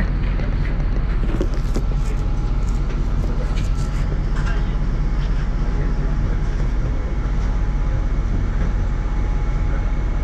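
A MAZ-103.486 city bus's engine running with a steady low hum as the bus moves slowly, heard from inside the passenger cabin. Light clicks and rattles come in the first half.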